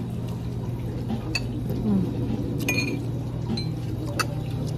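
Three light clinks of a metal spoon and fork against a bowl during eating, over a steady low background hum.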